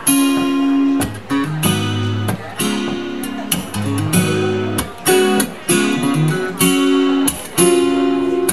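Acoustic guitar strummed in a rhythmic pattern of ringing chords, with the bass notes moving as the chords change: the instrumental introduction of a song, before the singing comes in.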